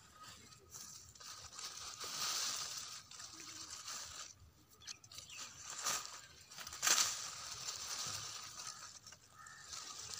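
Tomato plant leaves and stems rustling and crackling as a hand pushes through the foliage, swelling about two seconds in, with a sharp crackle near six seconds and a louder one about a second later.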